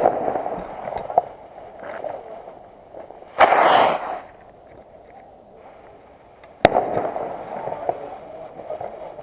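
Aerial fireworks firing shot after shot: a sharp bang as a shell bursts at the start, followed by a fading crackle. About three and a half seconds in, a shot launches with a whoosh of about a second, and a second bang with crackle follows about seven seconds in.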